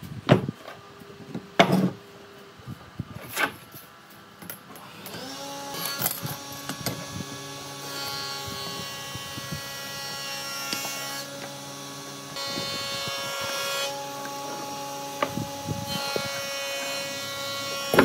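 A few knocks of wood being handled, then an electric power tool's motor spinning up about five seconds in and running steadily, working wood.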